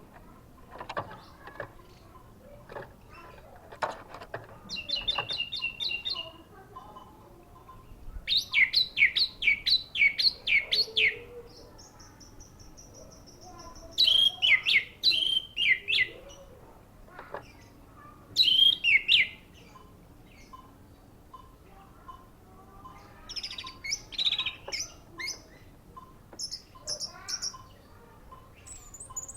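Orange-headed thrush singing in separate bursts of varied phrases: rapid runs of repeated chirping notes, trills and one long thin high whistle, with pauses between. A few light clicks in the first seconds.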